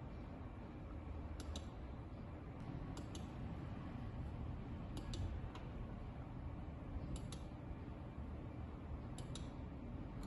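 Computer mouse button clicking, mostly in quick pairs of clicks about every two seconds, over a steady low background hum.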